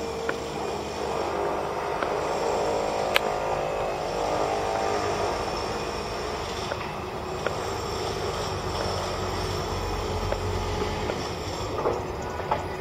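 Steady city traffic noise, with a heavier low rumble swelling around ten seconds in and a few sharp clicks, the loudest about three seconds in.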